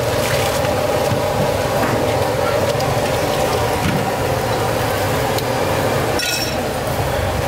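A steady low hum and rush of machine-like noise, with a single short ringing clink about six seconds in.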